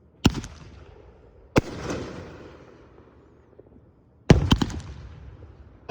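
Aerial fireworks bursting: a sharp bang, another about a second later, then a quick cluster of several bangs about four seconds in and one more at the very end, each trailing off in a fading echo.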